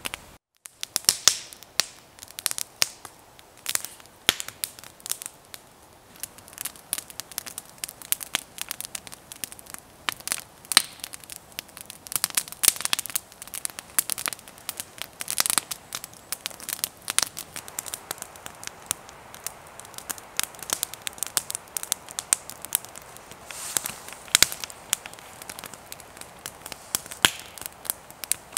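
Wood campfire crackling, with irregular sharp pops and snaps that throw sparks.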